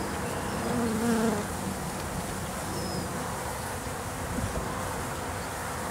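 Honey bees from a freshly installed package buzzing steadily around an open top bar hive, with one bee buzzing louder for a moment about a second in.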